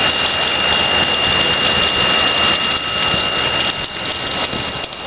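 Gen-Aer airlift aerator running, churning the pond water into a steady rush and splash, with a steady high-pitched whine over it.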